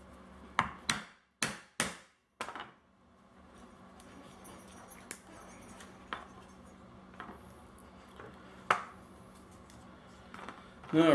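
Knocks and taps of a small hand hole punch and tools against leather and a hard cutting board as a hole is punched. Four sharp knocks come close together in the first two seconds, then scattered light clicks, with one louder knock later on.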